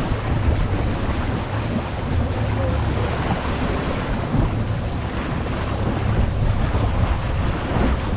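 Steady wind buffeting the microphone on an offshore fishing boat at sea, with the wash of waves and a low, constant rumble underneath.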